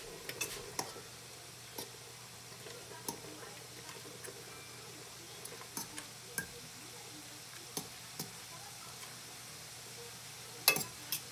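A metal utensil clinking against a stainless steel pot while stirring pasta: scattered light clicks, with two sharper clinks near the end, over a steady low hum.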